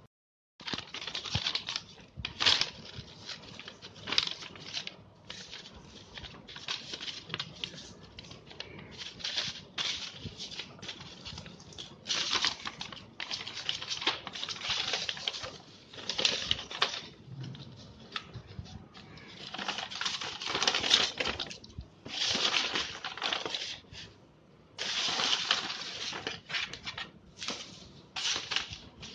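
Paper and cardboard being handled: irregular rustling and scraping, short bursts at first, then longer rustles in the second half as a large sheet of paper is moved about and spread out over cardboard pieces.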